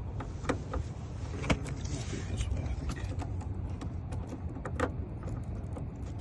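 Small metal clicks, taps and key jangling at the Mercedes CL550's hidden door keyway as a locksmith works the lock, over a low steady rumble.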